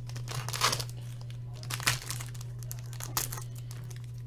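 Wrappers of Upper Deck Champs hockey card packs being torn open and crinkled, in three crisp rustles a little over a second apart.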